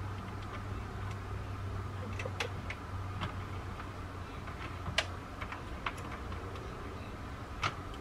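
Plastic hand-cranked circular knitting machine being turned, its needles and carriage giving scattered light clicks, the sharpest about five seconds in, over a steady low hum.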